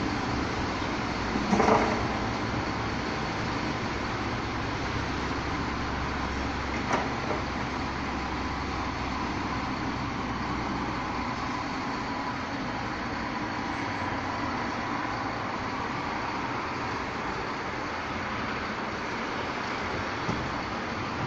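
Rotopress garbage truck running steadily as bulky waste is loaded into its rear hopper, with a loud crash about two seconds in and a couple of lighter knocks later.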